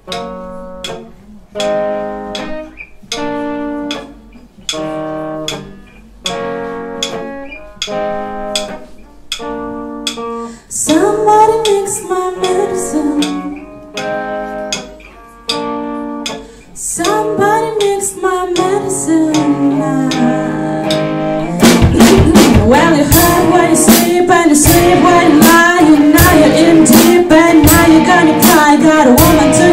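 Live rock band: guitar chords plucked in a repeating pattern about once a second, a woman's voice starts singing about eleven seconds in, and the full band with drum kit comes in loudly about twenty-two seconds in.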